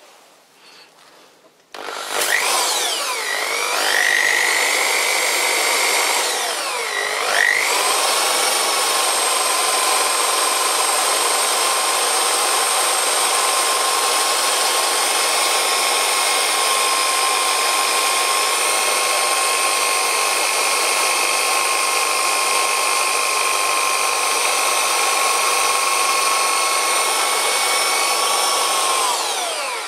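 Corded Black & Decker electric drill running, driving the lathe spindle for cross-drilling. It starts about two seconds in, its whine sags and recovers twice in the first few seconds, then runs at a steady speed and winds down at the very end.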